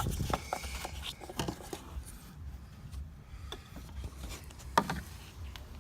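Small plastic clicks and rubbing from handling the Audi TT mk1's alarm siren unit as it comes out of its clipped mounting, with one sharper click near the end, over a low wind rumble on the microphone.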